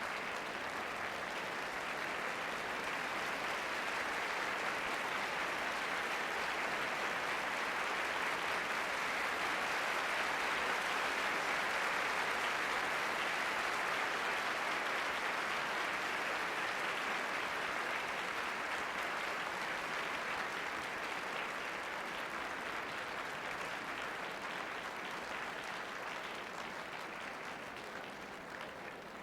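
Concert-hall audience applauding: dense, even clapping that swells to its fullest about halfway through, then slowly dies down toward the end.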